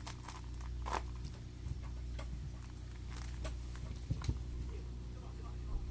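A kitten playing with a toy: a few scattered light taps and rustles, over a steady low hum.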